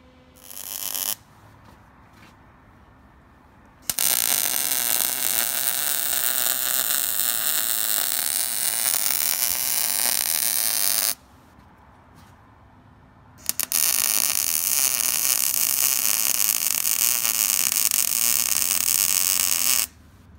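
Arc welding steel roll-cage tubing: two long, steady weld beads of crackling hiss, each about six to seven seconds, stopping suddenly, with a short burst near the start and a couple of quick arc strikes just before the second bead. Short runs laid one at a time, stitch-welding the trail cage to the factory roll bar.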